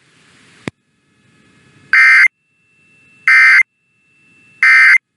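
Emergency Alert System end-of-message data tones: three short, identical bursts of digital data signal, about a second apart. This is the EOM code that closes the alert. A faint click comes shortly before the first burst.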